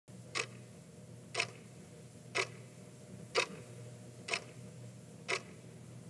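A clock ticking once a second, six even ticks, over a faint steady low hum.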